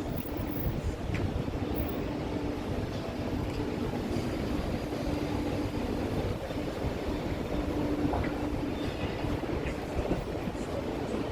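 A rail vehicle running nearby: a steady low rumble with a humming tone that comes and goes.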